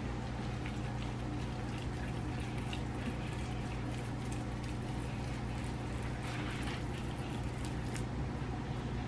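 Salmon croquette patties frying in hot grease in a pan: a steady sizzle with many small crackles and pops, over a steady low hum.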